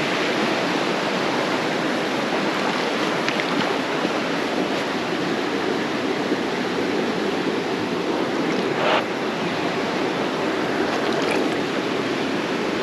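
Creek water rushing steadily over rocks, an even unbroken hiss, with one brief faint sound about nine seconds in.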